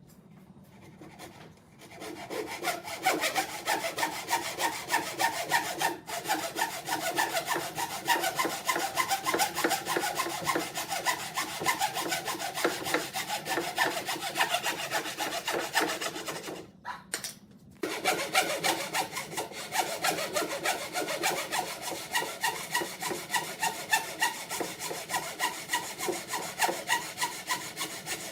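Hand saw cutting wood in steady back-and-forth strokes, about two a second. The sawing starts about two seconds in and stops briefly about two-thirds of the way through.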